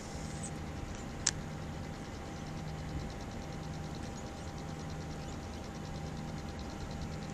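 An engine running steadily at a low, pulsing hum, with one sharp click about a second in.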